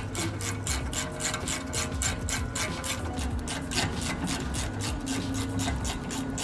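Hand ratchet with a 7 mm hex bit clicking evenly and rapidly as it screws a brake caliper guide bolt into place.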